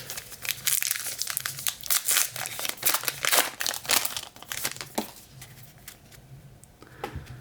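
Trading-card pack wrapper crinkling and being torn open, a dense crackle for about four seconds that thins out to a few light rustles and clicks.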